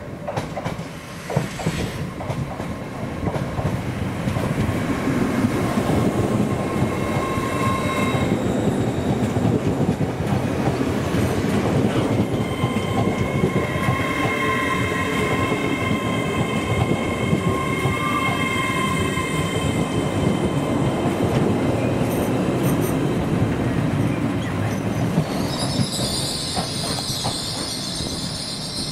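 A train running close by on the rails, its wheel noise building up and staying loud, with steady high-pitched wheel squeals coming and going over it. A higher-pitched set of tones comes in near the end.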